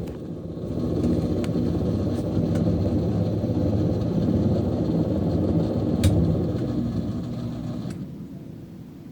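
Kenmore Elite Oasis high-efficiency top-load washing machine running mid-cycle, a steady low motor and drum hum with a few faint ticks. The hum dies down over the last two seconds.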